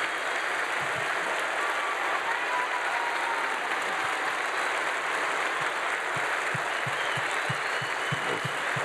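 Large audience applauding in a big auditorium: a standing ovation, sustained, dense clapping from many hands at a steady level.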